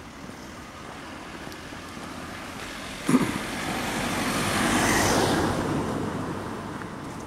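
A car driving past, its engine and tyre noise rising as it approaches, loudest about five seconds in, then fading away. A short sharp thump about three seconds in.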